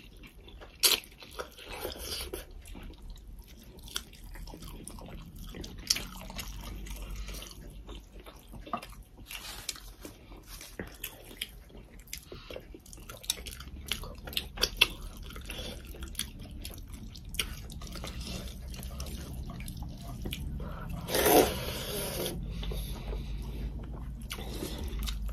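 Close-up eating sounds of people chewing and biting into chicken curry and rice eaten by hand: wet mouth smacks and many short sharp clicks, with one louder burst about three-quarters of the way through.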